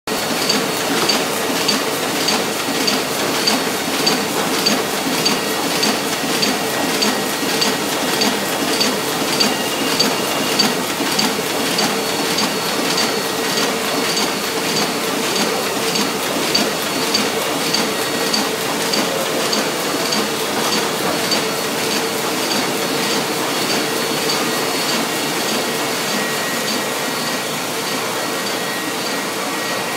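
Roland 200 sheet-fed offset printing press running and printing, with a steady hum and a regular clacking about twice a second from the sheet-feed cycle. The clacking grows less distinct near the end.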